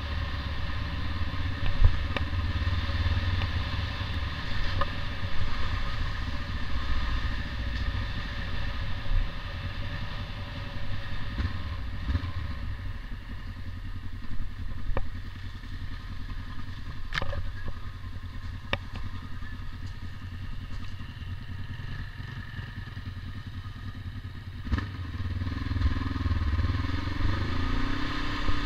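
Trail motorcycle engine running at low speed, heard from on board, with scattered knocks and rattles from the bike over rough ground. Near the end the engine picks up and its note rises and wavers.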